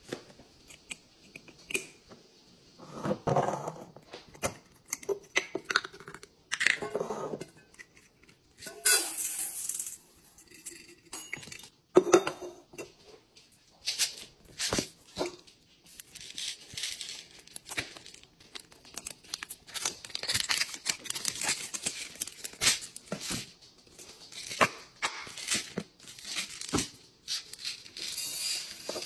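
Restocking handling sounds: a glass clip-top jar's lid shutting, packaging tearing and crinkling in a series of short clicks and rustles, and near the end scent-booster beads pouring from a plastic bottle into a glass jar.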